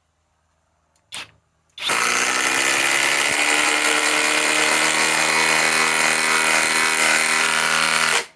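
Flex Quick Eject cordless impact driver hammering a 5-inch lag screw in: a short click about a second in, then the tool runs under load at a steady impacting rattle for about six seconds and stops abruptly as the lag is driven home.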